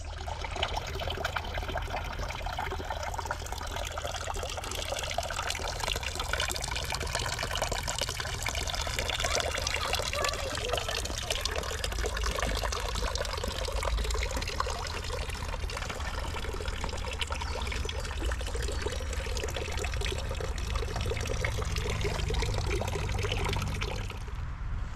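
Water running and trickling steadily, starting and stopping suddenly.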